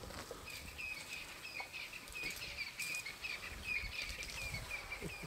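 A bird calling a steady, repeated run of short chirps, about three a second.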